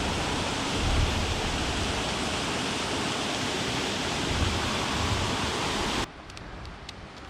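Steady loud rush of fast river water running through a riffle. It cuts off abruptly about six seconds in, leaving a quieter rush with a few faint ticks.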